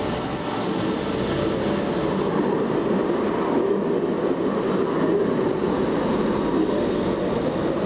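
Long articulated tram passing close by, its wheels running steadily along street-embedded rails.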